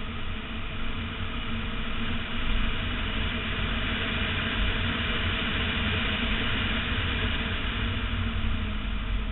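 Wind and wet-road noise at speed, picked up by a camera mounted outside on a BMW E46 M3's door mirror on a wet track. It is a steady, noisy rush with heavy low buffeting and no clear engine note, and it grows a little louder about two seconds in.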